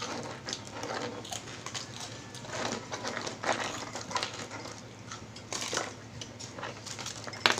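Chewing and crunching of crispy fried chicken skin: an irregular run of crackles and wet clicks.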